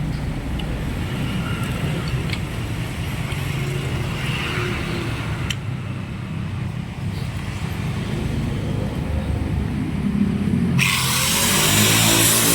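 A motor vehicle engine running with a steady low rumble. About eleven seconds in, a power tool starts suddenly with a loud, hissing grind.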